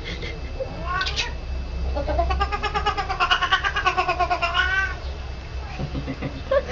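Cat caterwauling as in a cat fight: a short rising yowl about a second in, then one long, wavering yowl lasting about three seconds.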